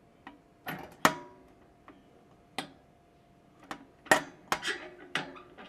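Stainless-steel lid clamp latch of a Kokusan basket centrifuge being worked open by hand: a series of sharp metallic clicks and clanks with a brief ring, the loudest about a second in and around four seconds in.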